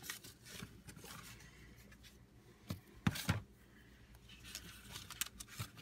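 Rustling and light knocks of paper notebooks being handled and slid onto an elastic band in a traveler's notebook cover, with a couple of sharper clicks about three seconds in.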